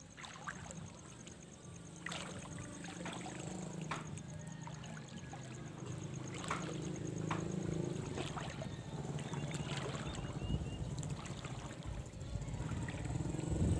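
Water trickling with irregular small splashes and drips, over a low steady hum that grows louder.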